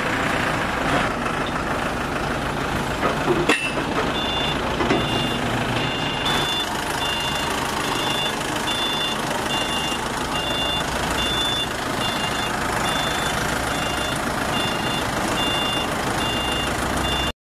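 Forklift engine running while its reversing alarm sounds a repeated high beep, starting about four seconds in. A single sharp knock comes just before the beeping starts.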